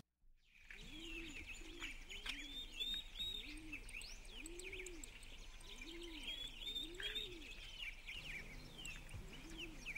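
Small songbirds chirping and twittering, with a pigeon cooing over and over underneath in a slow, even rhythm that stops about three-quarters of the way through and returns once near the end.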